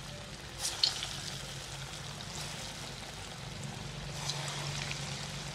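Falafel balls deep-frying in hot oil in a kadhai: a steady sizzling hiss with a few sharper crackles as more balls are dropped into the oil, the loudest about a second in.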